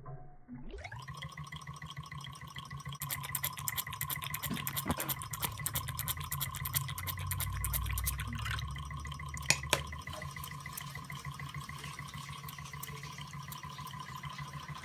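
A small model hot-air (Stirling) engine running: a steady whirring hum with fast ticking, which sets in with a quick rise in pitch within the first second. Water splashes as it is poured into the fountain bowl midway, with a couple of sharp clicks.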